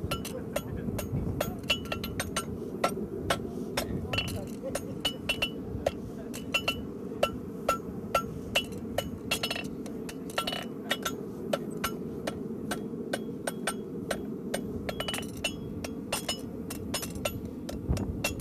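Farrier's hammer striking a horseshoe on the anvil while forging it, sharp ringing metal blows at an uneven two or three a second, over a steady low rumble.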